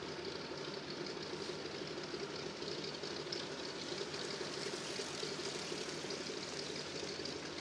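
A Zero fighter's Pratt & Whitney radial engine running steadily at idle on the ground.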